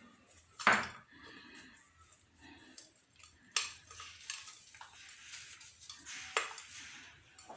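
Kitchenware clinking and knocking while cut lemons are packed with coarse salt: three sharp clinks, the loudest about a second in, with soft rustling and handling sounds between.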